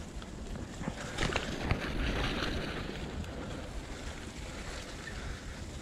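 Bicycle tyres rolling over wet fallen leaves and mud on a forest trail, with a few sharp rattles and clicks from the bike about a second in, under low wind rumble on the chest-mounted microphone.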